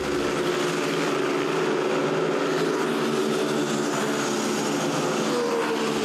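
Motorcycle engines running hard at high revs, loud and steady, with the pitch dipping slightly near the end.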